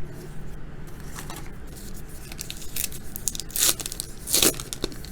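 Baseball trading cards and their packaging being handled: light rustling and clicks, then two quick ripping swishes about three and a half and four and a half seconds in.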